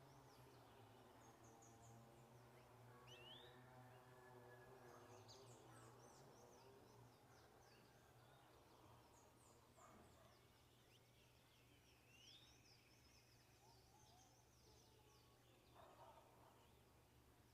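Faint, high-pitched chirps of saffron finches, short notes scattered throughout, over a steady low hum. A faint drawn-out pitched sound runs in the background from about one to seven seconds in.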